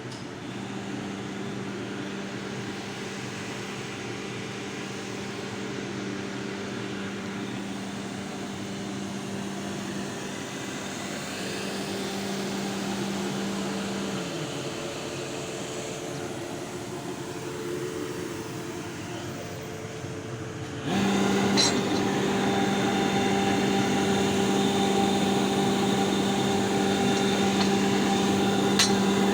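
Steady motor hum with a constant low tone, which weakens for a few seconds midway and then jumps louder suddenly about 21 seconds in.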